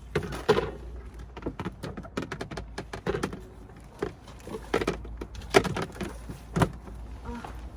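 Irregular clatter of objects being handled and set down, with a string of knocks and clicks; the loudest knocks come about half a second in and twice in the second half.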